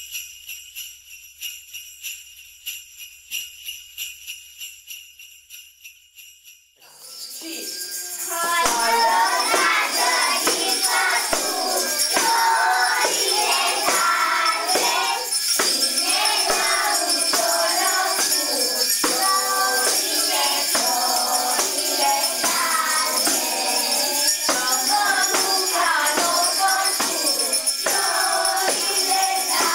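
Jingle bells shaken in a quick rhythm, fading out; about seven seconds in, a group of young children starts singing a Romanian Christmas carol with bells jingling along.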